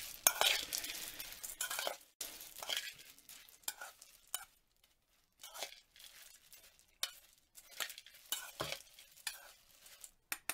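Metal teaspoon stirring salt into wet, freshly washed sunflower seeds in a metal saucepan: irregular scraping and rattling of seeds and spoon against the pot. The strokes are busiest in the first two seconds, then sparser.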